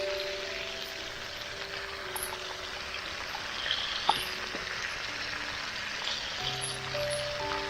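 Background music of slow, sustained notes over a steady hiss, with a single sharp click about four seconds in.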